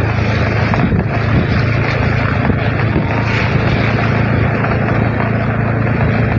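A vehicle engine running steadily at a constant pitch, with a broad rush of wind and road noise over it.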